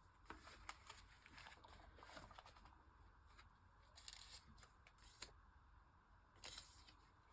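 Near silence with faint rustling and light clicks of paper labels being handled and sorted through.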